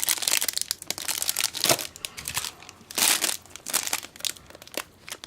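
Packaging crinkling and rustling in irregular bursts as small decorative craft birds are handled.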